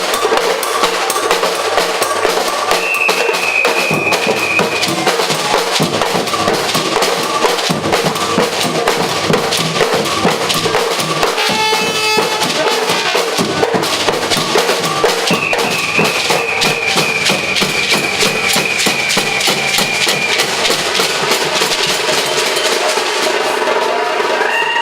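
Batucada percussion band playing: drums, including bass drums and snares, beat a dense, fast rhythm. A long high held note sounds twice over the drumming.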